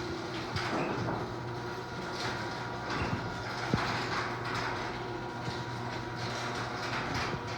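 LiftMaster garage door opener running, with a steady low hum under the rattling and clicking of the moving door.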